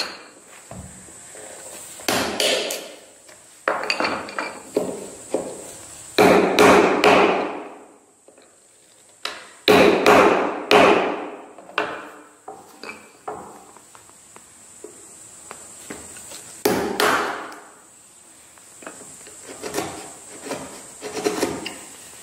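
Mallet striking a chisel chopping into walnut: sharp knocks in small clusters every couple of seconds, each dying away quickly.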